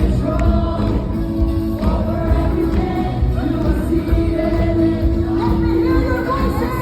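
Live worship music: a band playing with heavy bass while many voices sing together in long held notes.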